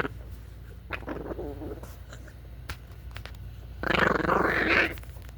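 A dog hidden under a blanket growling, in two bouts: a short wavering one about a second in, then a louder, rougher one about four seconds in, with a few small clicks between.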